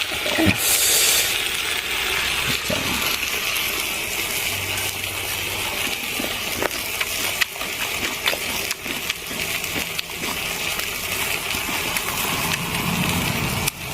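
Metal utensil clinking and scraping against a cooking pot over a steady hiss from the pot and stove, with scattered sharp clicks.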